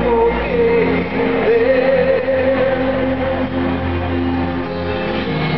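Live pop-rock band music through a stadium PA, with singing over the band that settles into a long held note about a second and a half in.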